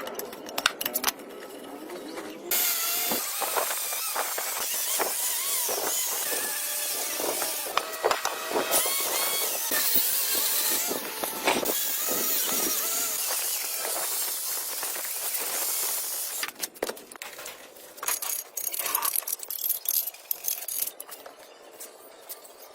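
A power tool running against metal for about fourteen seconds, starting a couple of seconds in and stopping suddenly, with a wavering squeal as its pitch shifts under load; scattered knocks and rattles before and after it.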